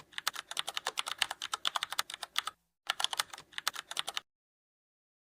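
Rapid typing on a computer keyboard: quick key clicks in two runs with a short pause about two and a half seconds in, stopping abruptly a little past four seconds.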